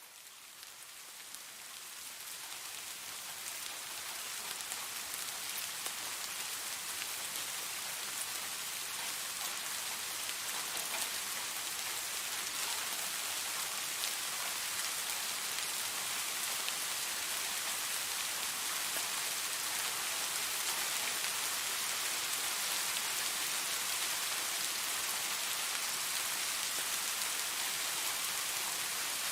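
Steady rain with the fine patter of many individual raindrops, fading in over the first few seconds and then holding even.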